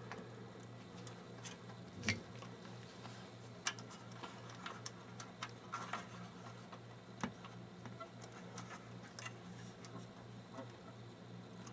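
Scattered small clicks, taps and a brief crackle of hands working on the opened monitor, prying up a taped-down ribbon cable and its tape. A faint steady hum runs underneath.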